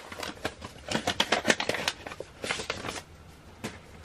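Crinkling and crackling of mail packaging being handled: a quick run of crackles and clicks that stops about three seconds in, then one more click near the end.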